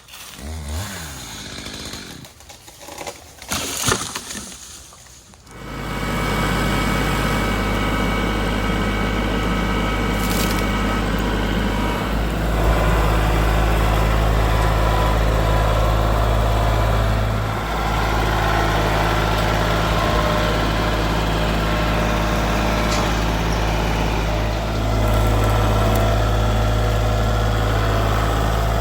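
Scattered rustling and handling noises, then about five and a half seconds in an engine comes in and runs steadily to the end, with a few small dips and swells in level.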